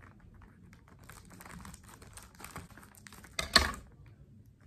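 Scissors snipping through a plastic courier mailer bag, the plastic crinkling and rustling with many small clicks; a short, louder crackle about three and a half seconds in.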